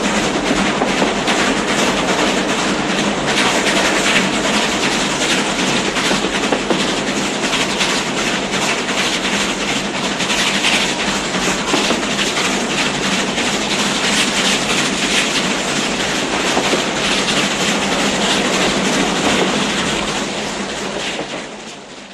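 South Australian Railways steam locomotive 504's train rolling past, wheels clattering rhythmically over the rail joints, fading out near the end.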